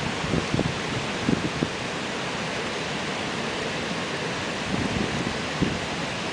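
A steady, even hiss, with a few faint brief sounds about half a second, a second and a half, and five seconds in.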